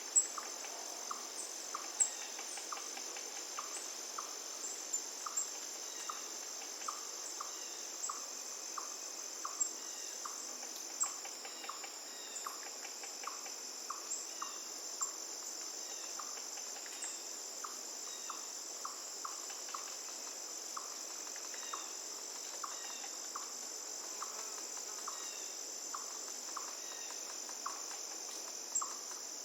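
Steady high-pitched chorus of crickets or similar insects, with a short lower chirp repeating about twice a second and occasional sharp ticks, over a faint even hiss.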